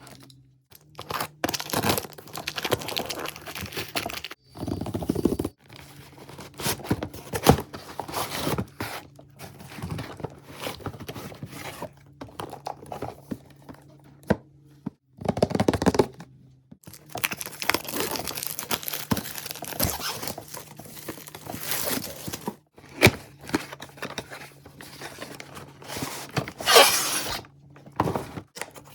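Packaging being torn open, crinkled and scraped by hand as a blow dryer is unboxed, in irregular rustling spells with occasional knocks and clicks.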